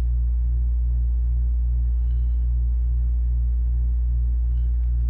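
Steady low electrical hum with a faint even pulsing about twice a second.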